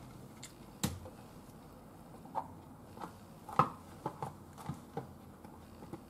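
Kitchen knife cutting kabocha squash on a wooden cutting board: irregular short knocks and taps as the blade goes through and meets the board, the loudest about three and a half seconds in.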